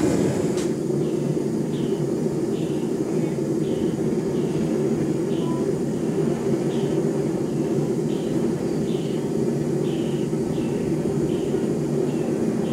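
Steady low roar of a gas forge burner running. There is a sharp click about half a second in, and faint short high chirps repeat roughly once a second.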